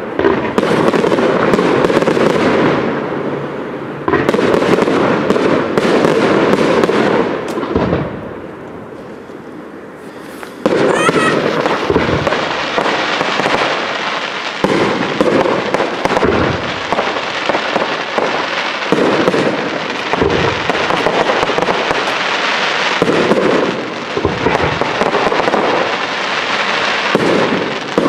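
Aerial firework shells bursting, with dense rapid crackling and bangs. It dies down for a couple of seconds about a third of the way in, then starts again suddenly and loudly.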